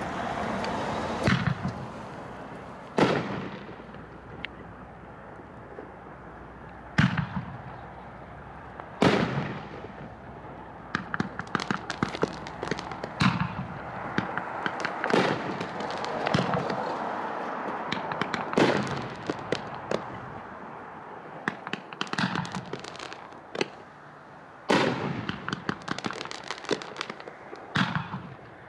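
Consumer firework cakes firing together, with sharp bangs from shots and bursts every few seconds and runs of rapid crackling from crackling stars. A steady hiss of burning effects carries on between the reports.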